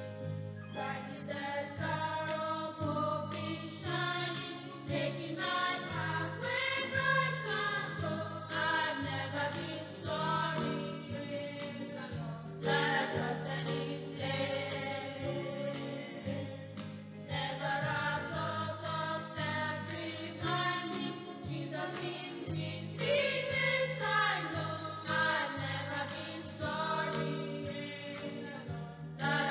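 A small choir of girls and young women singing a gospel hymn in unison, over a steady keyboard backing with a held bass line.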